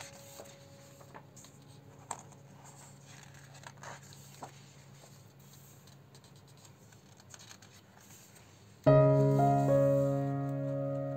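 Piano music: a held chord fades away while faint paper rustles and small clicks come from the pages of a hardbound photo book being turned by hand, then a loud new piano chord comes in about nine seconds in.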